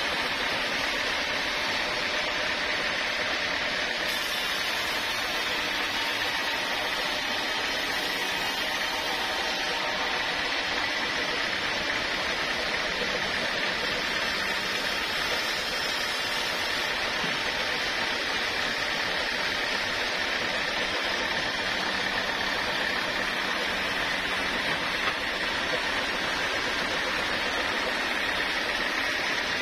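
Sawmill machinery running steadily: a continuous, even mechanical noise with no breaks or changes.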